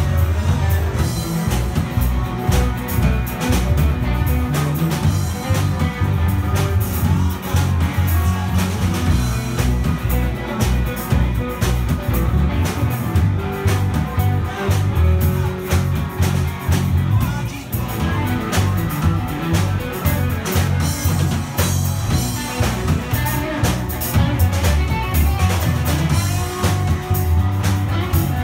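Live band playing an up-tempo instrumental jam: electric guitars and bass guitar over a drum kit with steady cymbal and drum hits and a strong bass line.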